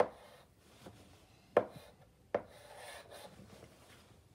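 Chalk writing on a blackboard: three sharp taps as the chalk strikes the board, right at the start, about one and a half seconds in and about two and a half seconds in, with soft scratchy strokes of chalk on slate between them.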